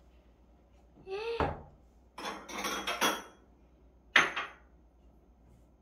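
Dishes and kitchen utensils clattering and clinking as they are handled, with one sharp ringing clink about four seconds in.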